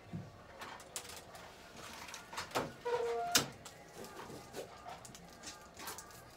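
Scattered sharp clicks and light rustling, the two loudest clicks about two and a half and three and a half seconds in, with a brief short tone in between.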